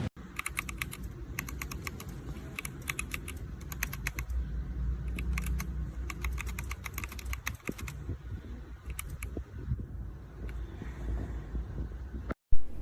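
Keys on a mechanical keyboard fitted with ABS keycaps being typed in quick bursts of clicks, which stop after about nine seconds. A single loud knock comes near the end.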